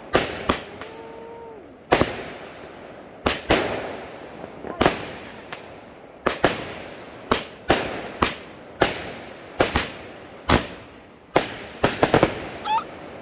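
Fireworks going off in a rapid, uneven string of sharp bangs, about one every half second to second and a half, each trailing off in a short echo, with a quick cluster of bangs near the end.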